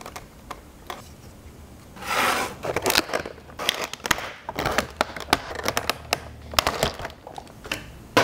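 Clear plastic packaging handled: a few sharp clicks, a stretch of crinkling about two seconds in, then a run of sharp plastic clicks and crackles as a clear plastic blister tray is flexed.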